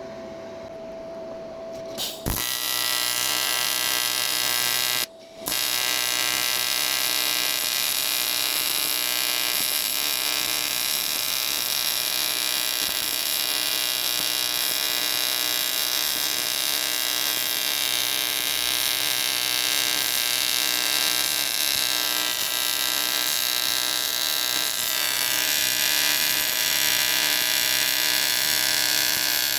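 TIG welding arc on aluminium: a steady electric buzz with hiss. It strikes about two seconds in, breaks off for a moment about five seconds in, then runs on.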